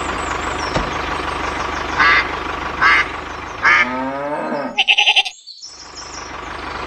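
A small motor runs with a steady hum and a low drone. About two seconds in, three short high-pitched calls break through, followed by a falling whine and a quick stutter; the low hum cuts out for about a second, then resumes.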